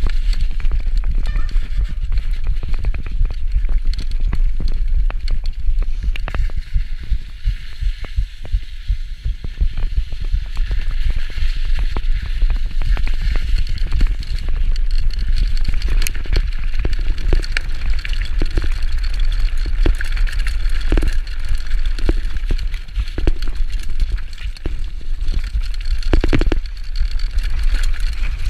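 Mountain bike being ridden over a snowy, slushy and muddy trail: tyres running through slush and mud, with many short knocks and rattles from the bike over bumps, under heavy wind rumble on the microphone.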